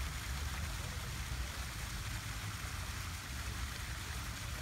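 Steady rushing and splashing of a small waterfall cascading over rocks, with a low rumble underneath.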